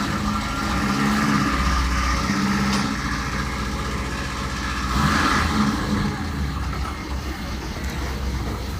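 Toyota Corolla KE30's 3K four-cylinder engine running at idle, rising twice in light blips of the throttle, the first about a second in and the second about five seconds in.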